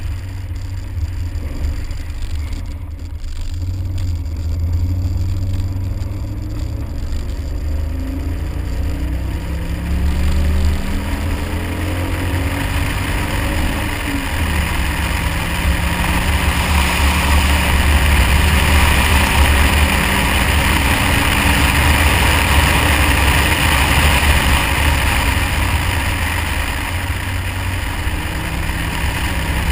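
Car engine pulling hard on snow-covered ice, its pitch climbing several times as it goes up through the gears over a heavy low rumble. From about halfway a loud rushing noise of wind and tyres through snow builds over the engine, heard from a camera mounted outside the car.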